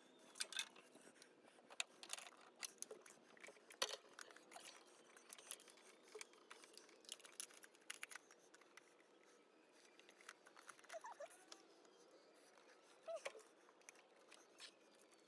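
Faint, scattered light clicks and taps of hand tools and parts being handled during engine reassembly, with a few short, faint squeaks.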